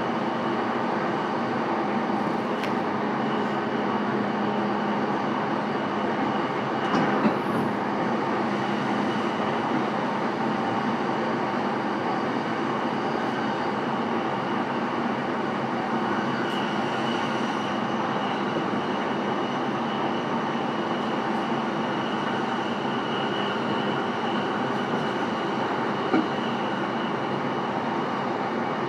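Running sound inside a JR East E233 series commuter car, recorded in motor car MoHa E233-1043 between stations: a steady rumble of wheels on rail with the hum of the traction motors. There is a brief knock about seven seconds in.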